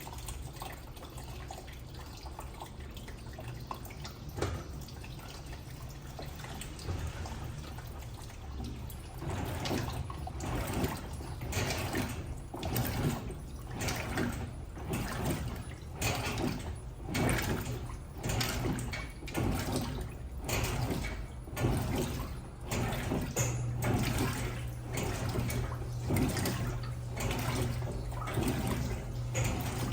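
Electrolux LTM16 top-loading washing machine running its wash cycle. Water rushes steadily for about nine seconds, then the agitator starts swishing the water back and forth about once a second, over the steady low hum of the motor.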